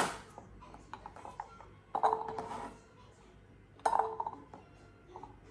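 Sliced carrot rounds and a knife clinking against a bowl as the chopped carrots are moved into it. There is a sharp knock at the start, a few light taps, then two short clatters about two and four seconds in.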